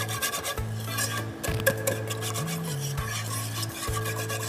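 Wire whisk stirring cornflour-thickened tomato and soy sauce in a saucepan on the stove, in quick, continuous scraping strokes against the pot as the sauce heats toward a boil.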